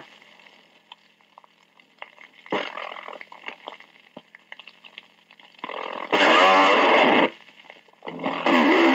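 Old police radio dictabelt recording played back at half speed. Faint hiss and scattered clicks give way after about six seconds to two loud bursts of radio transmission, the voices slowed, lowered and distorted past understanding.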